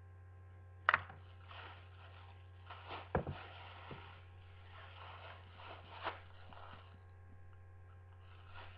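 A few sharp knocks and soft rustling over a steady low hum; the loudest knock comes about a second in, with others near three and six seconds.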